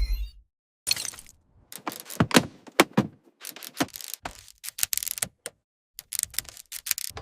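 A quick, irregular series of sharp clicks and knocks with short silent gaps between them, some sounding together in close clusters.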